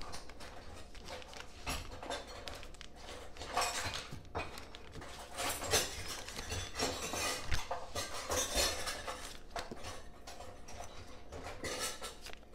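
Sticks of butter being unwrapped by hand, the paper wrappers rustling and crinkling, with scattered knocks and clinks as the butter is handled and dropped into a glass stand-mixer bowl.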